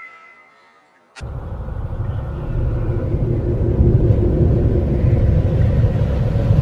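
A kitten's meow trailing off, then about a second in a sharp hit opens a deep cinematic rumble that swells louder, a dark intro sound effect.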